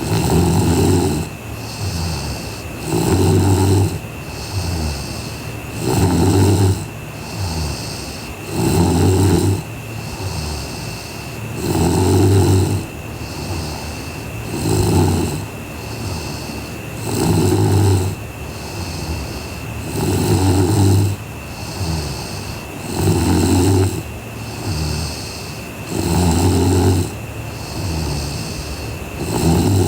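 A sleeping woman snoring in a steady rhythm, a loud rumbling snore about every three seconds with a quieter breath between.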